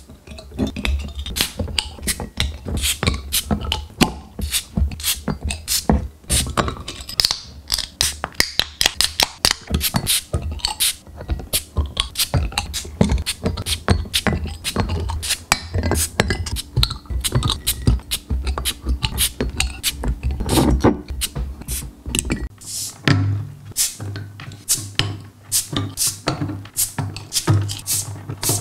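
Beer bottle crown caps being pried off with a metal bottle opener in quick succession: a rapid run of sharp pops and clinks, several a second, over a low steady hum.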